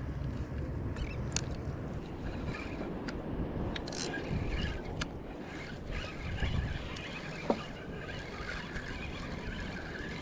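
Steady low wind rumble over open water, with a few light clicks and taps from handling a fishing rod while jigging a sabiki rig.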